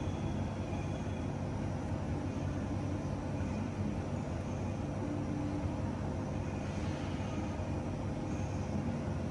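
A steady low rumble with a faint constant hum, unchanging throughout, with no distinct events.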